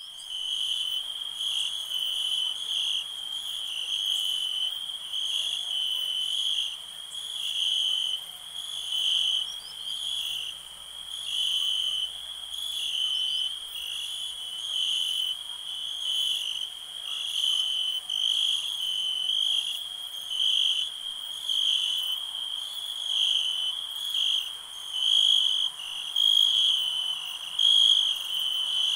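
A chorus of crickets chirping at night: a steady high-pitched trill, with higher chirps pulsing about once a second.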